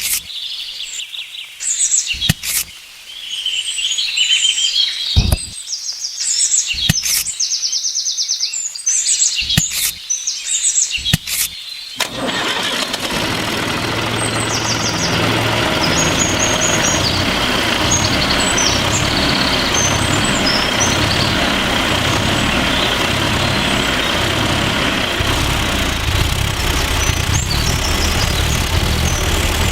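Birds chirping with scattered sharp clicks. About twelve seconds in, a small engine starts and then runs steadily, drowning out the birds.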